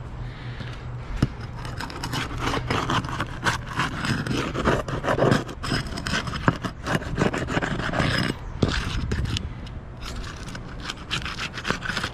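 An asphalt roof shingle being worked loose by hand: irregular scraping and rubbing, with a few sharp clicks, as the tab is pried free of the shingle beneath it.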